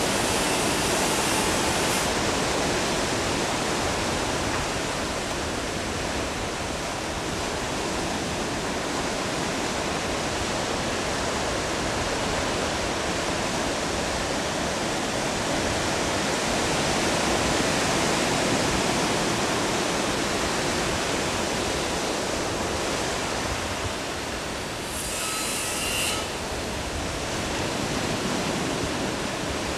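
Steady rushing noise of ocean surf, swelling and easing slowly. About 25 seconds in, a brief higher-pitched sound with a few clear tones lasts about a second.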